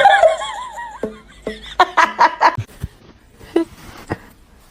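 A person laughing: a wavering, squealing laugh at first, then a string of short chuckles about two seconds in.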